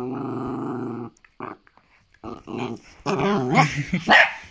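Small black-and-tan dog growling in play over a chew toy: one steady growl for about a second, then shorter growls and vocal noises later on.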